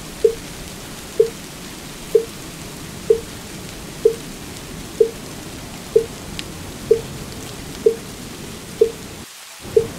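Wooden fish (mu yu) struck in a steady rhythm, about once a second, over the continuous hiss of steady rain. The rain briefly drops out near the end while the strikes go on.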